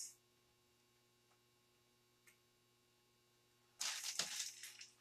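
Mostly near silence, then about four seconds in a brief rustling, crackling noise lasting about a second.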